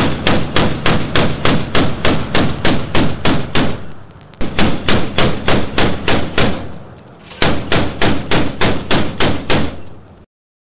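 Shipboard Mk 38 25 mm deck gun firing steady, evenly spaced single shots at about four a second, in three strings with short breaks between them, each shot ringing out over the water. The firing cuts off abruptly near the end.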